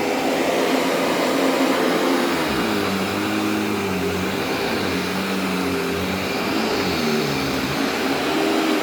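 Panasonic Performance Plus MC-6347 upright vacuum cleaner running at full power, a steady motor whine over airflow noise, its pitch wavering up and down from a few seconds in.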